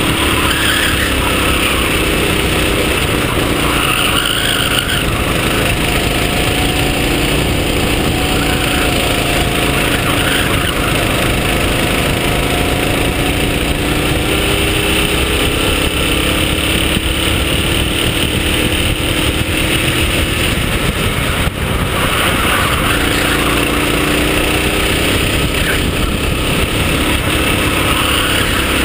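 Racing kart's engine heard from onboard at speed, its note sliding down and up with throttle through the corners, over a steady rush of wind and road noise.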